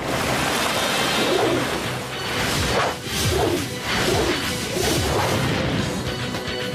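Cartoon action sound effects: a jet of water rushing and spraying, with several crashes and whooshes, over background music.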